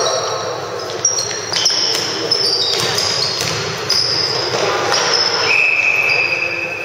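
Basketball game sounds in a gym: sneakers squeaking repeatedly on the hardwood floor and a few ball bounces, over echoing gym noise. A longer steady high tone comes in near the end.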